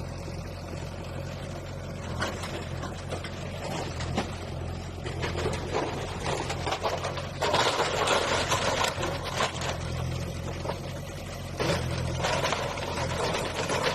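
Diesel engine of a demolition bulldozer running steadily, with louder bursts of clattering noise from about halfway through and again near the end.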